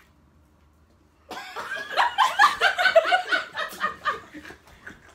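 A group of young men and women breaking into laughter about a second in, several voices laughing together in quick pulses, then dying down near the end.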